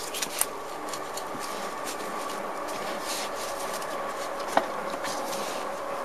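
Light clicks and scrapes of metal parts being handled as a scooter's rear wheel, spacers and brake caliper bracket are worked into place, with a few clicks near the start and one sharper knock about four and a half seconds in.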